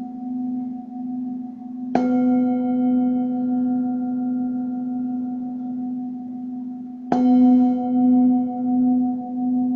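Singing bowl struck twice, a few seconds apart. Each strike rings on in a sustained low tone with higher overtones, wavering in a slow, even pulse.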